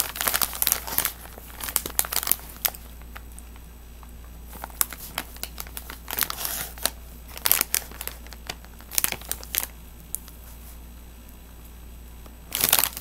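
Crinkly plastic cotton candy bag rustling and crinkling as it is handled, in short bouts with quieter pauses between.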